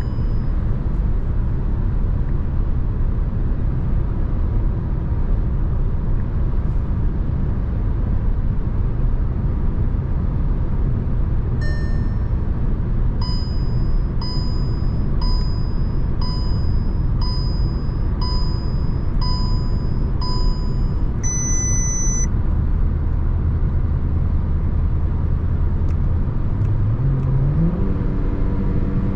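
Steady road and tyre rumble inside the cabin of a VW T-Roc with a 1.5 TSI turbo four-cylinder petrol engine. About twelve seconds in, a dashboard chime is followed by a run of eight short electronic warning beeps about a second apart, ending in one longer, higher tone. Near the end the engine note rises as the car accelerates.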